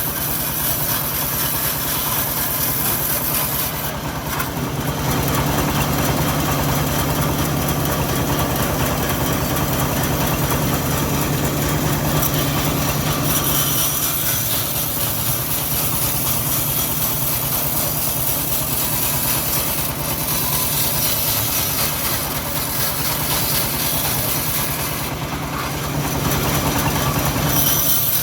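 Homemade engine-driven band sawmill running steadily while sawing teak, its engine note shifting slightly with the load, and a high hiss that comes and goes.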